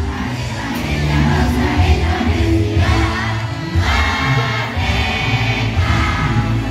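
A large group of students and teachers singing a song together in chorus, many voices holding the notes in unison.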